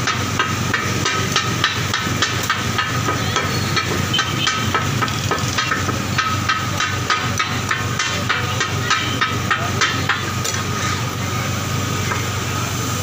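Two flat metal spatulas chopping minced beef on a large flat tawa griddle (katakat), clattering against the metal in a fast, regular rhythm of about three strikes a second that stops about ten seconds in. The meat sizzles in oil underneath.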